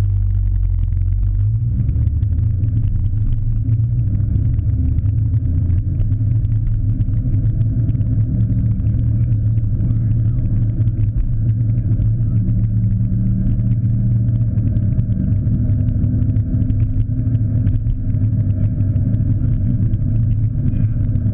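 A car's engine and road rumble heard from inside the cabin, muffled by a camera's sealed waterproof housing: a steady low rumble with little treble, its tone shifting slightly as the car drives.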